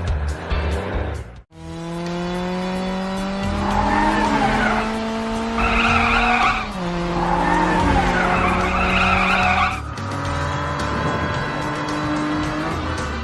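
Cartoon vehicle sound effects: an engine whine that rises slowly in pitch three times, resetting lower each time, with patches of tyre-screech hiss, over background music with a low beat.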